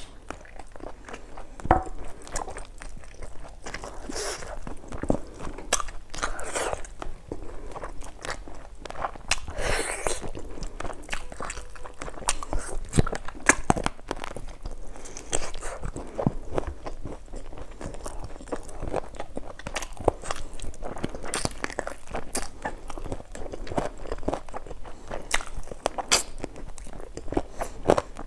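A person eating: biting and chewing meat off a curried chicken drumstick bone, with many short sharp clicks and smacks at irregular intervals.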